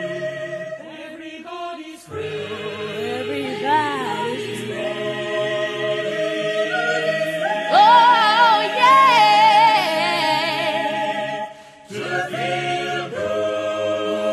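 Choral music: voices singing sustained chords, with a higher voice wavering with vibrato above them in the middle. The music drops away briefly about two seconds in and again near twelve seconds in.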